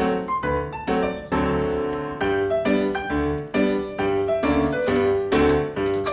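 Background music: a piano tune of evenly paced notes, each struck and fading.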